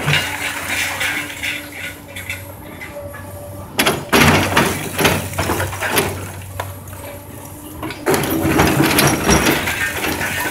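A Komatsu 200 excavator's diesel engine running steadily under the rush and clatter of falling demolition debris. The crashing comes in two louder spells, about four seconds in and again about eight seconds in.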